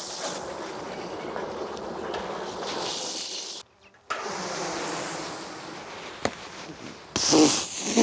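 Honeybee swarm buzzing steadily as the cluster is shaken off a board into a hive box, breaking off briefly a little past halfway. Loud, sudden noises come near the end.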